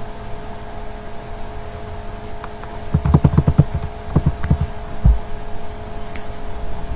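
Computer keyboard keys being typed: a quick run of about seven keystrokes, then three more and a last single one, picked up as dull low thumps. A steady electrical hum runs underneath.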